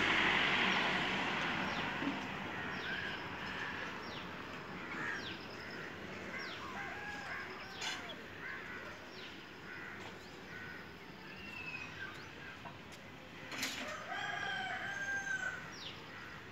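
A rooster crows once, a long call about two-thirds of the way through, amid many short, falling chirps of small birds calling throughout. A steady hiss at the start fades over the first few seconds.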